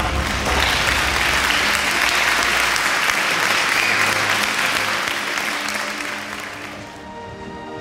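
Audience applauding, fading out near the end as sustained music notes take over.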